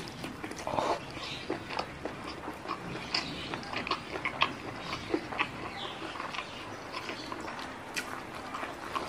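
Close-miked chewing of a mouthful of spicy stir-fried squid: irregular wet smacks and clicks from the mouth, the food going in at the start and then chewed with the lips closed.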